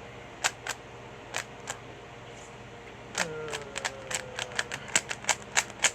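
Plastic 3x3 Rubik's cube being turned by hand: sharp clicks of the layers snapping into place, a few spaced turns at first, then a fast run of turns in the second half.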